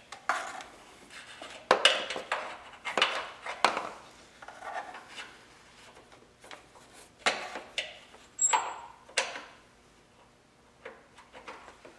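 Battery hold-down brace being worked into place over a car battery by hand: scattered sharp clicks and knocks of metal and plastic, with rubbing in between, as its hooked end is fitted into its hole.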